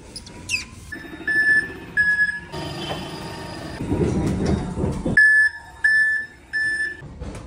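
Forklift warning beeper sounding in evenly spaced high beeps, about one every 0.7 seconds. Two or three beeps sound, then it stops for a few seconds of rumbling and clattering from the moving forklift. Three more beeps follow.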